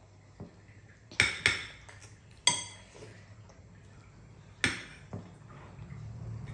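Metal spoons and forks clinking and scraping against ceramic bowls as children eat. There are several sharp clinks, each with a short ring, the loudest a little over a second in, around two and a half seconds and near five seconds.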